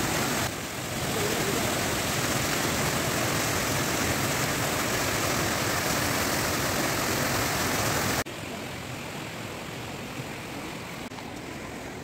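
Steady rush of falling and flowing water from a waterfall and stream, an even noise with no distinct events; about eight seconds in it cuts abruptly to a quieter rush.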